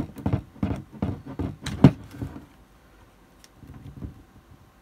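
Clicks and knocks of hard plastic as a sealed lead-acid battery pack is handled and one cell is levered away from its plastic connector block to reach the terminals. The knocks come several a second for the first two seconds, then give way to softer handling.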